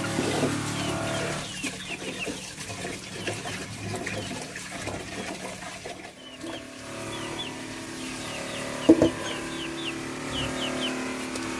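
Hen clucking amid repeated short, high, falling chirps, over a steady low hum, with one sharp clatter about nine seconds in.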